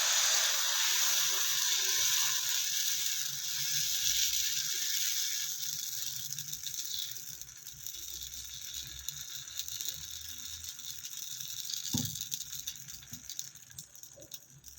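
Onion-and-chilli dosa batter sizzling on a hot, oiled dosa griddle, a crackling hiss that is loudest at first and slowly dies down. A single light knock about twelve seconds in.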